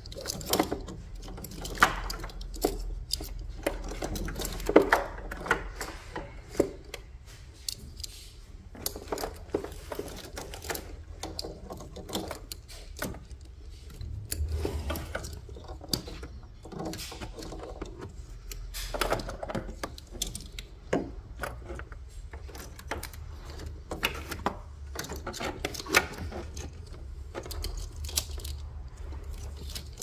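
Irregular clicks, taps and rattles of plastic wiring-harness connectors and cables being handled and routed in a car's engine bay, over a low steady hum.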